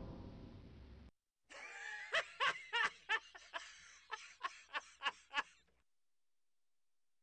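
The fading tail of a loud, noisy sound effect, then after a brief gap a snickering cartoon laugh: about a dozen short 'heh' bursts over roughly four seconds, stopping abruptly.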